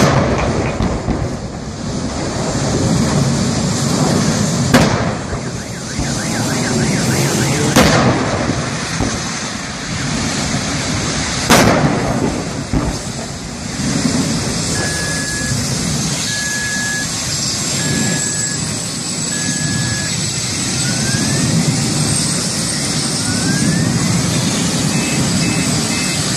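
Gas cylinders on a burning truck bursting one after another: three sharp explosive bangs in the first twelve seconds, with a steady rushing noise between them. Later come four short, evenly spaced electronic beeps.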